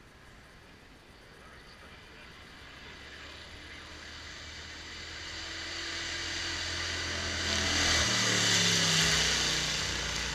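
A racing car's engine approaching up the hill at full throttle, growing steadily louder, then passing close by about eight seconds in with its engine note dropping in pitch as it goes away.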